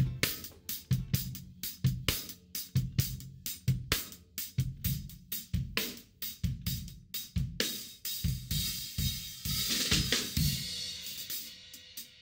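Acoustic drum kit played in a steady beat: sharp snare and hi-hat strokes over kick-drum thuds, two to three hits a second. A cymbal wash swells and rings for a second or two about nine seconds in.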